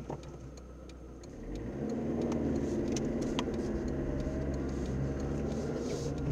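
Car engine heard from inside the cabin. It idles quietly, then about a second and a half in its note rises and grows louder as the car moves off, and it keeps running steadily. A few faint clicks are scattered through it.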